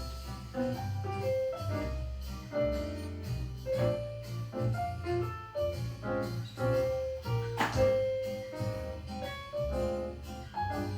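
Jazz music playing, with piano over a walking bass.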